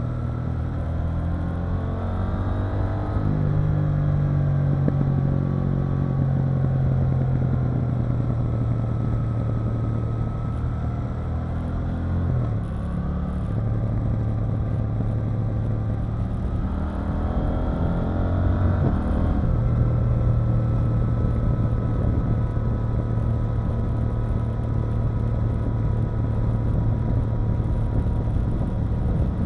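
KTM 890 Duke R's parallel-twin engine running under way, its note rising as the rider accelerates about two seconds in and again about seventeen seconds in, dropping briefly near the middle, and otherwise holding steady at cruise, over road and wind noise.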